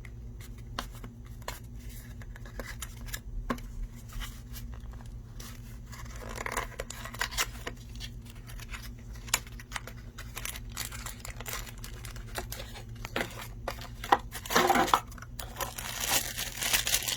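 Plastic packaging crinkling and rustling with scattered clicks and taps as small bagged mounting hardware and tools are handled. The rustling is loudest in a burst about six seconds in and again near the end, over a low steady hum.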